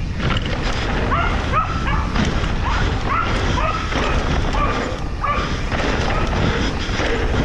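A dog barking repeatedly in short, sharp barks, about one or two a second, over the steady rumble of a mountain bike and wind on the trail.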